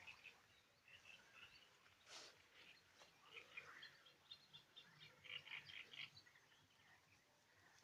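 Faint songbirds chirping: quick runs of short high notes, busiest around the middle.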